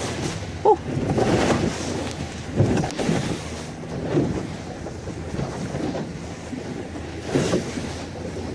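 Small boat running through choppy sea: a steady engine hum under wind buffeting the microphone and waves slapping and splashing against the hull, louder a few times.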